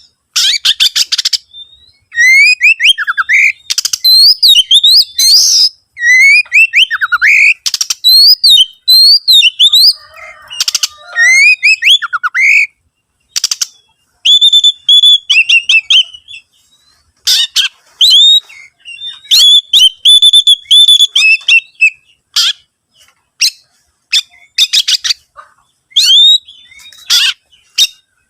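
Oriental magpie-robin singing loudly in short, varied phrases: rising and falling whistles, held whistled notes and rapid harsh rattles, with brief pauses between phrases. The song is packed with 'isian', the fill of mimicked notes in a kacer's repertoire.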